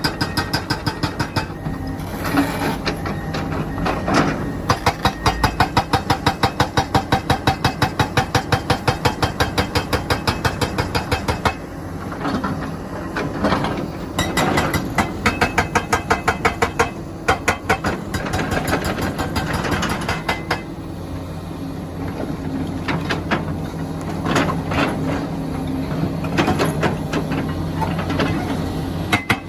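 Rammer hydraulic breaker on a Komatsu PC400LC excavator hammering stone in rapid, evenly spaced blows over the excavator's running diesel engine, with short breaks where only the engine is heard.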